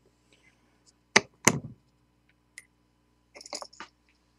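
Two sharp taps about a second in, then a quick cluster of light clicks near the end: a small wire-leaded chip capacitor and bus wire being handled and set down on a steel bench block. A faint steady electrical hum runs underneath.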